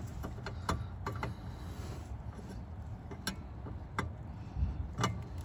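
Handling of a replacement HID headlight bulb being pushed into its socket in the headlight housing: a few sharp plastic clicks and ticks at irregular intervals over a faint low background.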